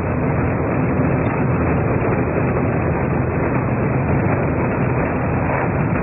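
Car driving at a steady speed, heard from inside the cabin: a steady low engine hum under an even rush of tyre and wind noise.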